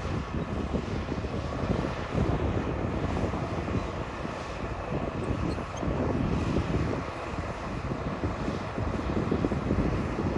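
Diesel engine of heavy earthmoving machinery running under load, a continuous low rumble that swells and eases.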